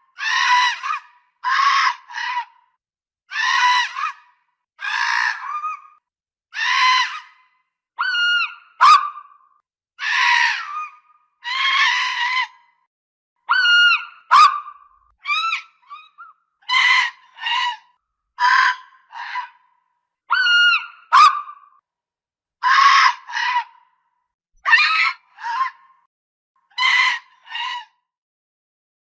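Fox barking: a series of short, hoarse, high-pitched barks, mostly in twos and threes, every second or two, some rising and falling in pitch like a yelp. The calling stops near the end.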